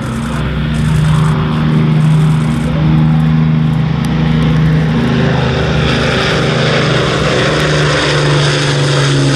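Avro Lancaster bomber's four Rolls-Royce Merlin piston engines in flight, a deep propeller drone that wavers and pulses. The sound grows brighter and hissier in the second half as the aircraft approaches.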